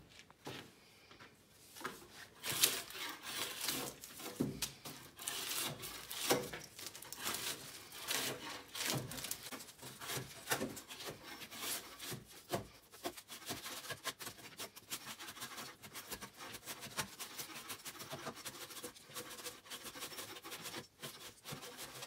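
Bark being scraped off pine logs with a long-handled hand scraper: repeated rough scraping strokes of the steel blade on wood. The strokes come at an uneven pace and get closer together in the second half.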